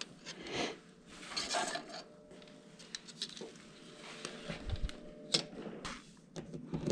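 Scattered light clicks and rustling as plastic parts of a screwless switch wall plate are handled and fitted over the switch, with a soft thud about two thirds of the way in.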